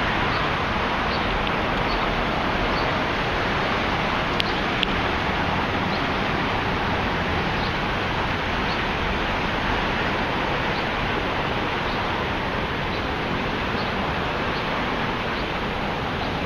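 Steady wind buffeting the microphone over the hum of the city. A faint high chirp repeats a little over once a second, and two short clicks come about four and a half seconds in.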